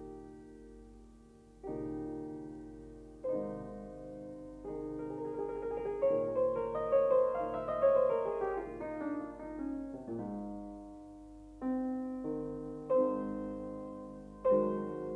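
Background piano music: slow, gently struck chords, with a quicker run of notes rising and falling through the middle.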